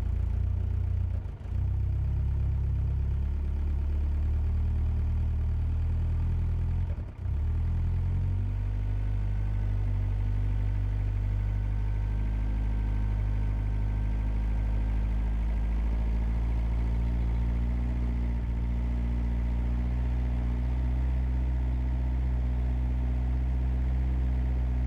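1988 Lotus Esprit's turbocharged four-cylinder engine running at a rough idle, stumbling briefly twice before its note changes and steadies about eight seconds in. The rough running is being chased as a possible throttle position sensor fault.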